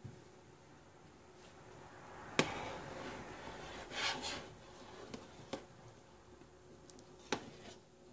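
A spatula stirring rice and broth in a stainless steel stockpot: a sharp knock against the pot about two seconds in, then swishing through the liquid, with a few lighter knocks after.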